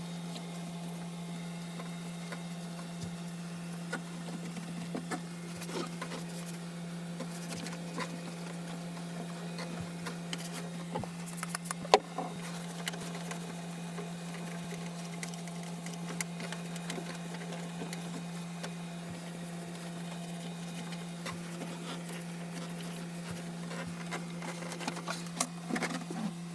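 A steady low hum runs throughout, with scattered light clicks, taps and rubbing from hands-on cleaning work on interior trim, including one sharper tap about halfway through.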